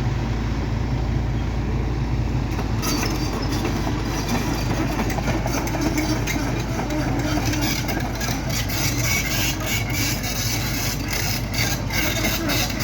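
Excavator diesel engine running steadily with a low hum. About three seconds in, a rattling clatter of many short knocks joins it.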